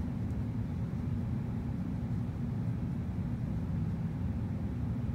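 Steady low rumble of room ventilation, even and unchanging.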